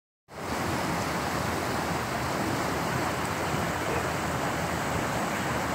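Steady rushing of a brook's waterfall, a constant even noise with no breaks.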